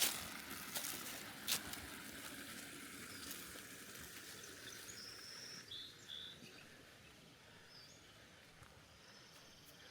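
Outdoor nature ambience: a steady high hiss, a few sharp clicks in the first second and a half, then brief high bird chirps around the middle and again near the end.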